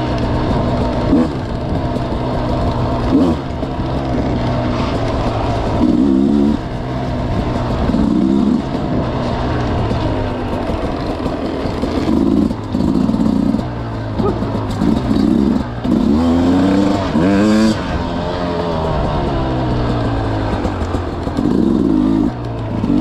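Off-road enduro motorcycle engine running on a trail, with repeated short bursts of throttle whose pitch rises and falls between steadier running.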